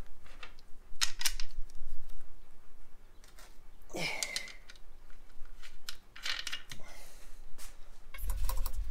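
Scattered light clicks and knocks of steel suspension parts being handled and moved on a workbench, with a low rumble near the end.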